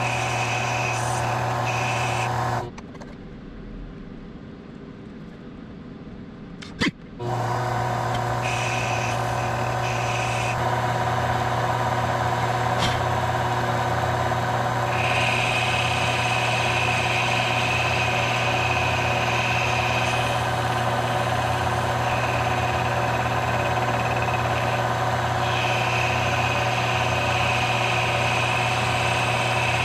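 Benchtop mini metal lathe running with a steady motor hum while it turns a layered leather cue tip. It stops about two and a half seconds in, a sharp click follows about seven seconds in, and it starts up again at once. After the restart a higher whine comes and goes several times.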